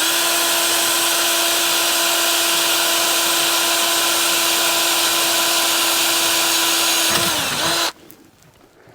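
Power drill running at a steady high speed for about seven seconds while drilling the first screw hole. Then its motor whine falls in pitch and stops.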